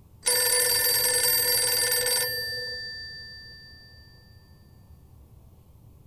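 A red rotary-dial telephone's bell rings once for about two seconds. The ring stops abruptly and the bell tones hang on, dying away over the next couple of seconds.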